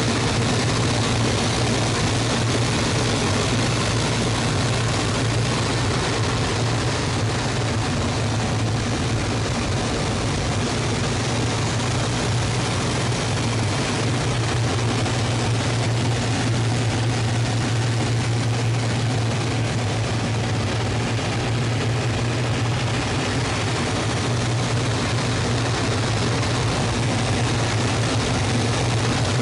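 Hawker Hurricane Mk XII's Rolls-Royce Merlin 29 V12 engine and propeller running steadily in flight, heard from inside the cockpit as a constant low drone with rushing airflow noise.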